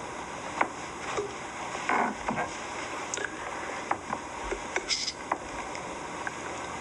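Steady hiss of an old film soundtrack with scattered faint clicks and a brief soft rustle about two seconds in.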